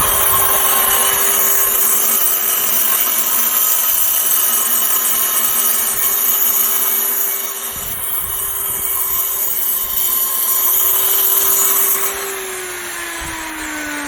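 Angle grinder cutting into a concrete roof slab to open up cracks before waterproofing: a steady motor whine with a gritty grinding hiss. About twelve seconds in, the cutting stops and the motor's pitch falls steadily as the disc winds down.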